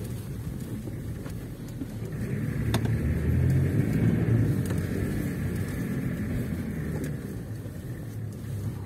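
Off-road vehicle's engine running under load, getting louder about two seconds in and then holding steady, with a faint high whine and a few light knocks.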